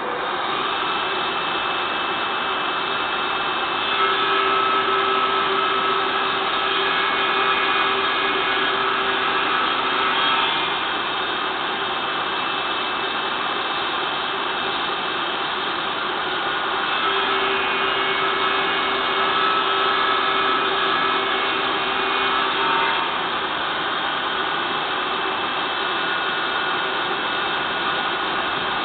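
Electric power tool motor running continuously, a steady whirring with two louder stretches of about six seconds each, starting about four seconds in and again about seventeen seconds in.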